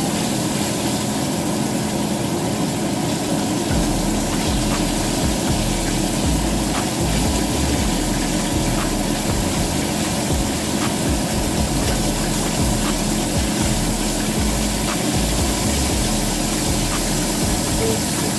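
Breaded chicken strips shallow-frying in a pan of hot oil: a steady sizzle with scattered small crackles.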